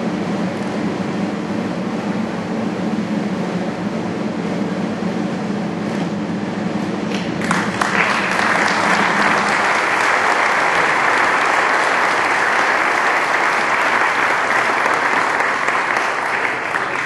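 A steady low hum, then an audience breaking into applause about seven and a half seconds in, the clapping running on steadily.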